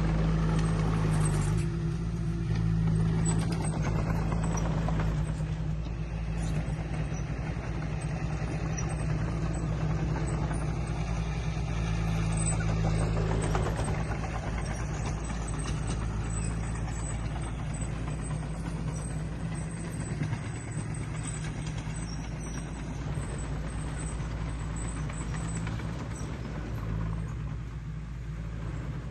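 Diesel engine of heavy earthmoving machinery running steadily, a constant low hum with mechanical clatter over it.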